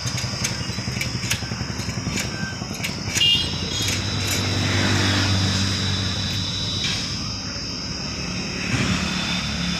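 Heavy diesel engine running steadily, revved up for a couple of seconds around four to six seconds in. A few sharp knocks come during the first three seconds.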